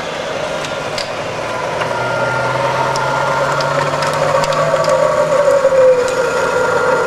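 Variable-speed milling head of a YCI Supermax vertical mill with its 3 HP spindle motor running, its speed being changed with the hand wheel on the head. A steady mechanical whine over a low hum slides down in pitch and grows louder, with a few faint clicks.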